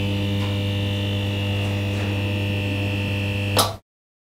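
Steady electrical hum of a neon sign, a low buzz with a thin high whine above it. Near the end a short crackle, and then the hum cuts off suddenly.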